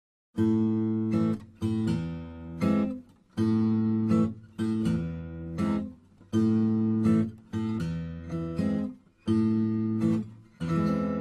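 Background music of strummed acoustic guitar chords, struck in a repeating pattern of three chords about every three seconds.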